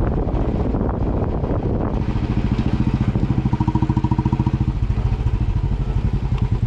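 Motorcycle engine running with a fast, even pulse, the beats becoming more distinct in the second half.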